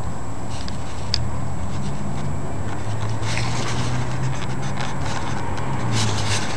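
Outdoor yard ambience dominated by a low, steady droning hum, with one sharp click about a second in and two short rustling bursts, about halfway through and near the end.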